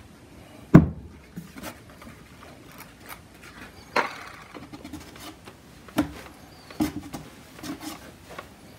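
Scattered handling knocks and clicks on a wooden workbench as the compound bottle is set down and a rotary polisher is picked up and placed on the stove glass; the sharpest knock comes about a second in. There is no motor sound: the polisher is not running.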